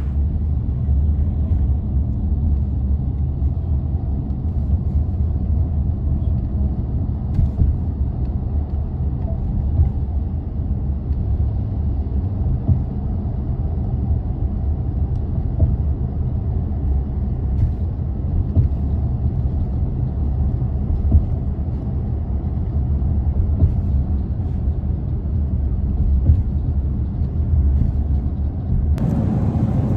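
Steady low rumble of a jet airliner's cabin in flight, heard from a window seat.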